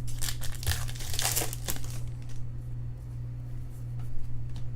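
Crinkling of a foil trading-card pack wrapper being handled. The crackling is busiest in the first two seconds, then thins out, over a steady low hum.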